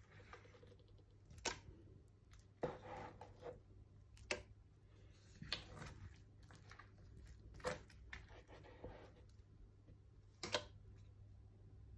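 Soft butter being scooped with a spoon from a plastic tub into an aluminium pot: faint scraping and squishing with about six sharp taps of the spoon against the containers, spaced a second or two apart, over a faint low hum.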